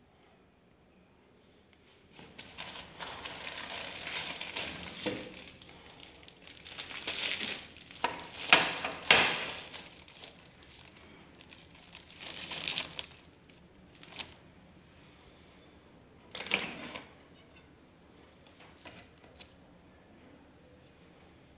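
Clear plastic wrapping film crinkling in irregular bursts as it is handled, loudest about eight to nine seconds in, with a couple of short crinkles later.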